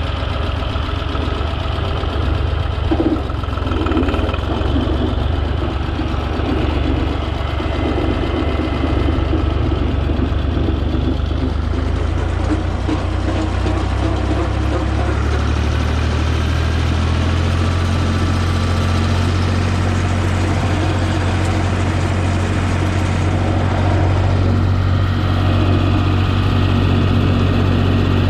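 Tractor engine running steadily, with a deeper, steadier hum settling in about two-thirds of the way through.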